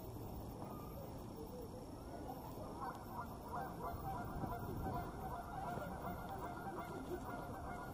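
Birds calling: many short, repeated calls start about three seconds in and keep going, over a steady low background noise.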